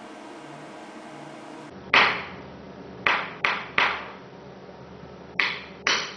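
Wooden fingerboard deck knocked against a tabletop: six sharp wooden clacks, each ringing briefly. The first comes about two seconds in, then three in quick succession, then two near the end.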